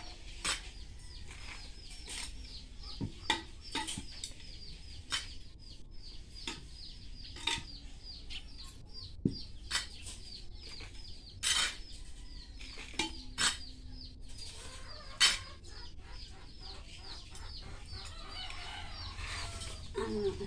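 A hand trowel scraping and knocking against a terracotta pot as potting soil is scooped out, giving irregular sharp scrapes and clicks. A steady run of quick, high chirps goes on in the background.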